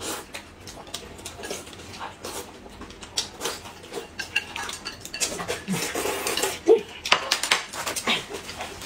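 Spoons and chopsticks clicking against a plate and small cups in a run of short, irregular clicks, with noodles being slurped and food chewed.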